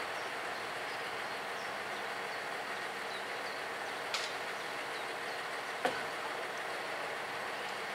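Syntus LINT 41 diesel railcar idling at a station platform, a steady hum and hiss. Two short sharp clicks sound past the middle, about a second and a half apart.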